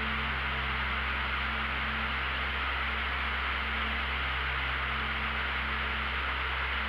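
Steady rushing noise of a light aircraft in flight, under a held low ambient-music chord.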